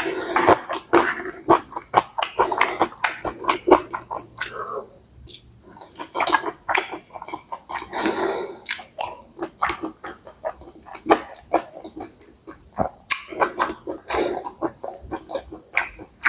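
Close-miked eating: a person chewing and slurping stir-fried rice noodles (pad see ew), a dense run of wet mouth clicks and smacks with short slurps.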